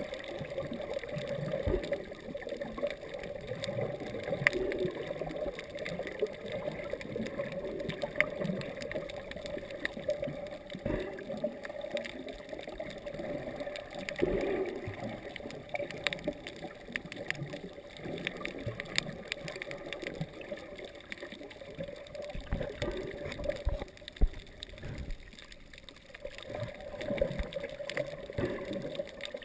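Muffled underwater water noise: gurgling and sloshing with scattered small clicks over a steady hum.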